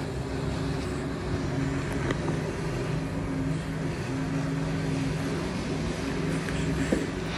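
A steady low hum with several held tones that break off and return every second or so.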